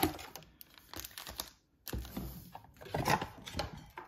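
Cardboard trading-card box being handled and slid out of its sleeve, then set on a wooden table: scattered taps, rustles and scrapes, with a soft thud about two seconds in.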